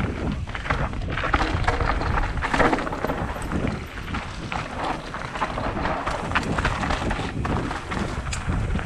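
Mountain bike ridden over a rocky trail: the bike rattling and the tyres crunching on stones in a dense run of knocks and clicks, over wind rumbling on the microphone.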